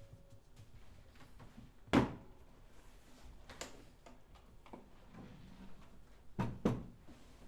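Scattered knocks and clicks over a quiet room: one loud thump about two seconds in, lighter taps after it, and two close knocks near the end.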